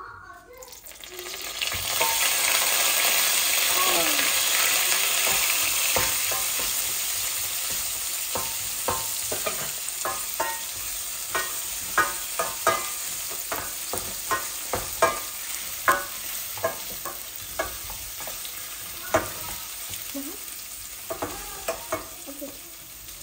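Soaked rice hitting hot butter and toasted noodles in a steel pot: a loud sizzle starts about two seconds in and slowly dies down while a wooden spoon stirs. From about nine seconds on, the spoon knocks sharply against the pot again and again.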